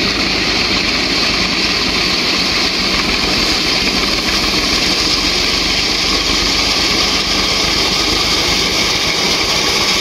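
Tractor engine running steadily while it drives a front-mounted reaper through standing wheat during the harvest.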